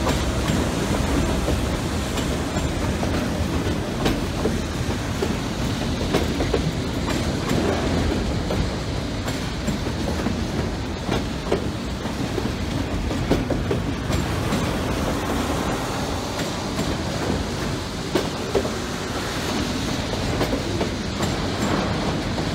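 Freight train of autorack cars rolling past close by: a steady rumble of steel wheels on rail, with scattered sharp clacks and clicks all the way through.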